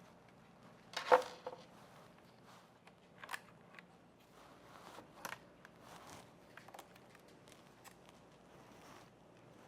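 Handling noises of small hard parts: a sharp click with a brief ring about a second in, then a few lighter clicks and taps.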